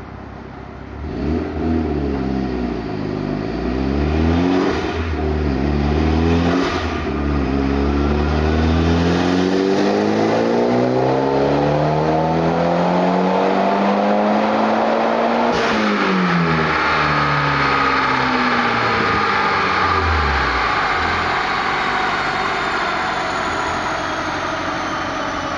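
Turbocharged 2.0-litre four-cylinder of a COBB-tuned 2010 Mitsubishi Lancer Evolution X with a Perrin exhaust, on a chassis dyno. It blips the revs twice, then makes a full-throttle pull that climbs steadily for about nine seconds. The pull cuts off sharply about two-thirds of the way in with a brief crack, then the revs fall away while a high whine winds down as the wheels and rollers coast to a stop.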